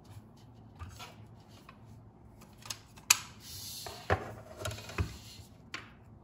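A plastic sliding paper trimmer being handled and set down on a desk. A sharp click about three seconds in, then a short scraping slide and several light knocks.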